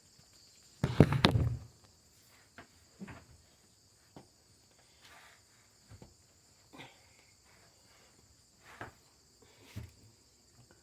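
A loud handling thump about a second in, then scattered soft knocks and shuffling steps as someone moves about, with crickets chirring steadily in the background.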